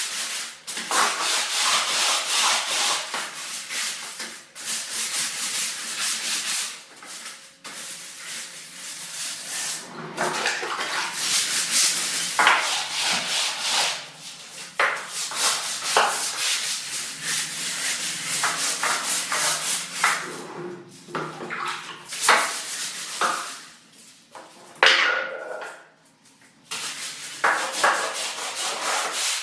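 A stiff scrubbing brush rubbing hard over a bathroom surface in rapid back-and-forth strokes, going in stretches with short pauses between them.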